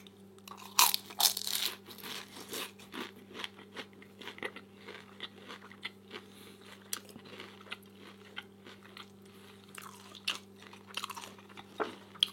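Close-up eating sounds: a person biting and chewing crunchy food, with irregular crunches and crackles throughout. The loudest bites come about a second in and again near the end.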